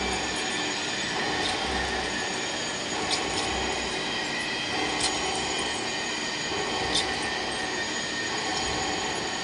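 Large metal lathe turning a big cylinder sleeve: a steady mechanical whine made of several held tones, with a low throb about every two seconds and a few sharp clicks.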